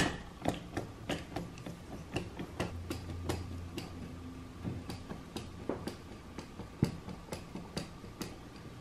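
Irregular clicks and knocks, a few a second, from a Brompton folding bike's crank being turned and rocked by hand; the bottom bracket is worn out and loose.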